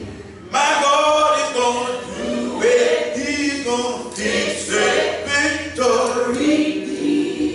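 A man singing a gospel song into a microphone, holding long drawn-out notes, with the singing coming in about half a second in.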